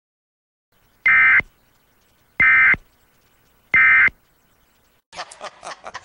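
Three short, identical buzzy data bursts of Emergency Alert System SAME digital code, about a second and a half apart: the end-of-message signal that closes an EAS alert.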